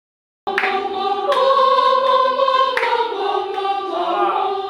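A choir singing held chords a cappella. It comes in about half a second in and moves to new chords a couple of times.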